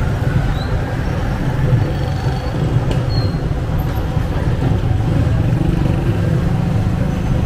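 Street traffic of a slow-moving car and motorcycle convoy: a steady low rumble of engines and road noise.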